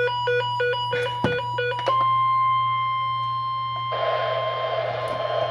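Weather radio sounding a special marine warning: a rapid run of evenly repeating, alternating high and low beeps, then about two seconds in the steady 1050 Hz NOAA Weather Radio alert tone. A hiss joins the tone about four seconds in, over a constant low electrical hum.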